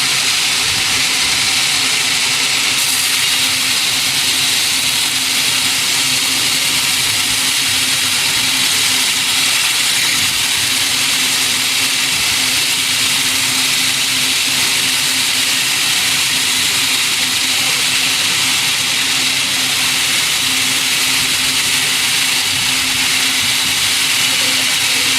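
Sawmill machinery running steadily: a loud, even high-pitched noise over a constant low hum, with no breaks or changes.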